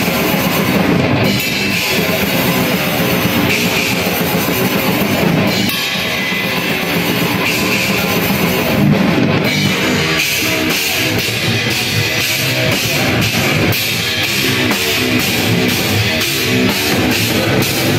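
Rock band playing live in a rehearsal room: drum kit and guitar. From about ten seconds in, the drums settle into a steady pounding beat of about two hits a second.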